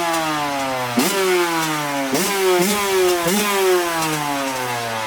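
Honda CR85 two-stroke dirt bike engine, just started on one kick, being revved in short throttle blips. The revs jump up sharply about four times and fall away slowly between blips.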